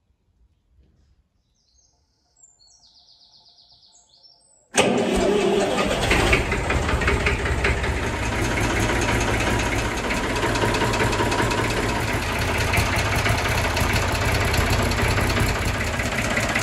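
Faint bird chirps, then about five seconds in a tractor's three-cylinder diesel engine, the Massey Ferguson 35X's Perkins A3.152, comes in loud and keeps running steadily.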